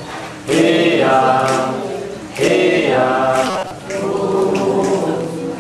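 A group of voices singing a chant together without instruments, in repeated phrases about two seconds long.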